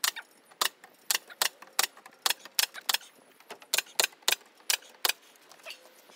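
About a dozen sharp clicks in an uneven run, two or three a second, ending about five seconds in.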